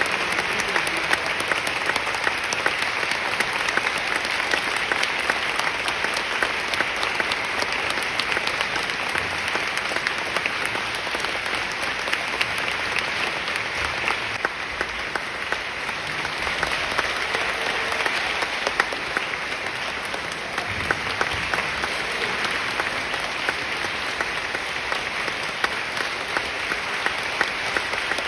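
Theatre audience applauding steadily, a dense patter of many hands clapping that eases a little about halfway through and then picks up again.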